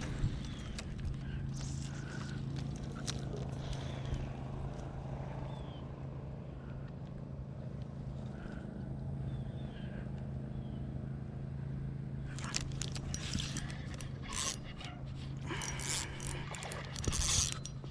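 Steady low hum of a small motor running, with a dense run of clicks and scraping in the last five seconds or so.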